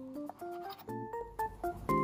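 Background music: a light melody of short single notes stepping in pitch, with a low bass coming in about a second in.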